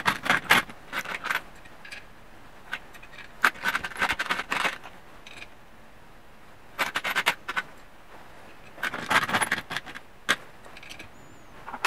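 Metal clinking and scraping in four short clusters of sharp clicks, from hands working the newly machined intake block and its fittings on a two-stroke engine crankcase during a test fit.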